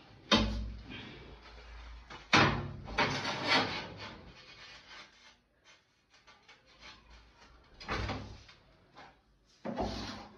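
Glazed ceramic wall tiles being set down and slid over one another on a concrete floor. A sharp clack comes just after the start and another at about two seconds, followed by a second or so of rasping tile-on-tile sliding. Two softer knocks come near the end.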